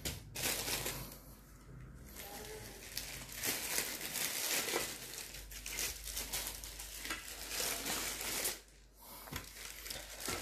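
Clear plastic bag crinkling and rustling as a weighing scale is handled and slid out of it, in irregular bursts with a short lull near the end.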